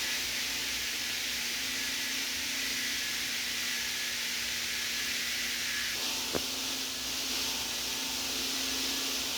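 FM radio static: a steady hiss from a receiver tuned off-station near 103.0 MHz, with faint steady tones underneath. A single sharp click comes about six seconds in, as the hiss shifts slightly.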